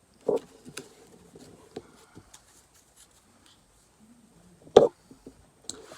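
Pokémon trading cards being handled: soft rustling and small clicks of cards and pack wrappers, with two short, louder knocks, one about a third of a second in and one near the end.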